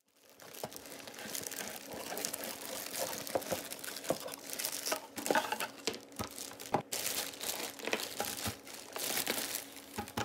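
Clear plastic packaging bag crinkling and crackling in irregular bursts as a mini food chopper wrapped in it is handled and lifted out of its box, with a few sharper clicks.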